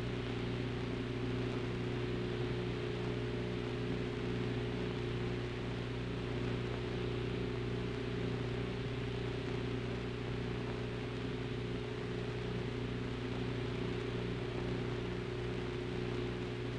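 Steady hiss with a low, even hum and a faint regular pulsing in it: the background noise of an old film soundtrack, with no other sound over it.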